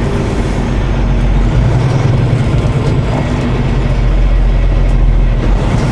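Semi-truck diesel engine heard from inside the cab while driving slowly through a turn: a steady low rumble that grows somewhat louder about a second and a half in.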